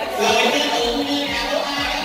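Background music with a steady beat: low drum thumps about twice a second under held melodic notes.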